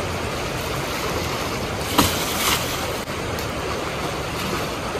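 Shallow river water running steadily, with two short splashes about two seconds in as water is scooped up in a plastic bucket.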